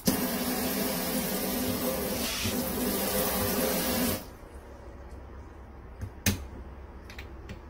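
Kitchen pull-out faucet running water in thin spray streams into a stainless sink at weak pressure, then shut off about four seconds in. A sharp click follows a couple of seconds later.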